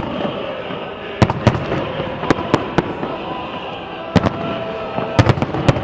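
Fireworks exploding: about a dozen sharp, irregularly spaced bangs, some in quick clusters, over a steady background din.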